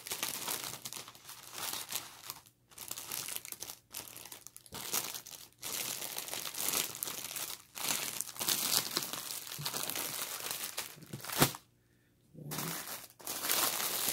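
Clear plastic bags of diamond-painting drill packets being handled, crinkling in irregular stretches with short pauses. A single sharp tap about eleven seconds in is the loudest moment, followed by a brief quiet gap.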